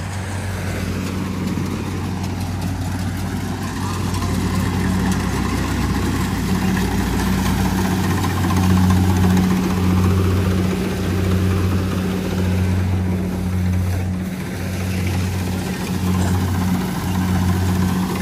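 An engine running steadily with a low drone. In the second half the drone swells and dips about once a second.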